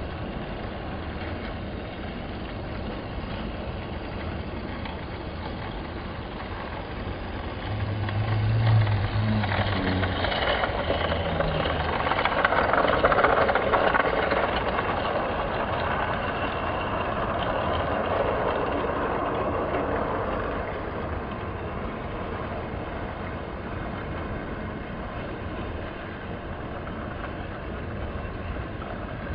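Toy train running with a steady, engine-like drone. It grows louder about eight seconds in, with a brief low hum soon after, and eases off again after about twenty seconds.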